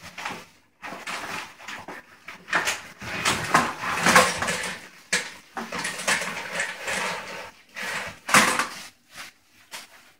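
Plastic bag crinkling and rustling as shrimp are shaken out of it into a metal CanCooker pot, with irregular clatter against the pot, busiest a few seconds in and again near the end.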